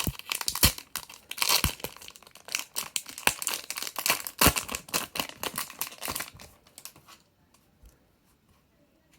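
Foil trading-card booster pack wrapper being torn open and crinkled, a dense run of tearing and crackling that lasts about six and a half seconds, then a few faint handling ticks.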